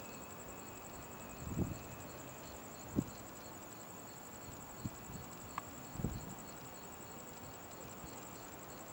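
Insects chirring steadily in a fast, high, pulsing trill, with a few short low thumps on the microphone near the middle.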